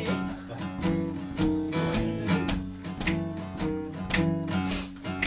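Acoustic guitar strummed in a steady rhythmic intro, with sharp hissing accents on the beat about twice a second.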